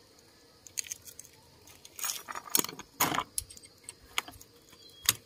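Allen wrench clicking and clinking against the bolts of a Yamaha Mio Sporty's timing-chain cap as they are loosened: a scattered series of light metallic clicks.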